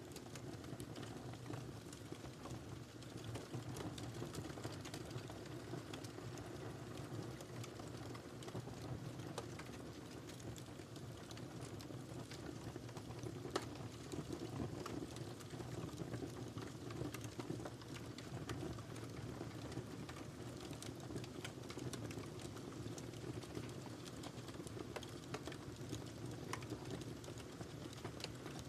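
Wood fire burning in a fireplace, crackling steadily with many small pops and a soft rumble of flame beneath.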